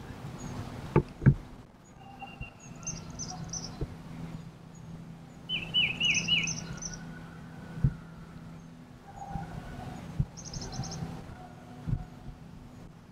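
Songbirds calling in the woods: scattered high chirps and trills, with a quick run of four high, falling notes about six seconds in. Two sharp knocks come about a second in, and a few softer ones follow later.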